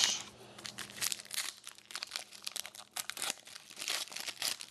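Foil wrapper of an Artifacts hockey card pack crinkling and tearing as it is opened by hand: a fast, irregular run of small crackles.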